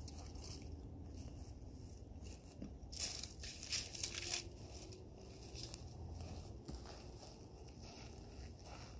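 Footsteps crunching and rustling on a dry trail of grass, pine needles and twigs, with a cluster of louder crunches around the middle.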